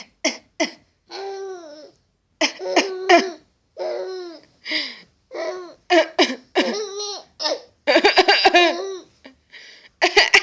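A small child laughing in long, high-pitched laughs at someone's coughing; short coughs and bursts of laughter take turns again and again.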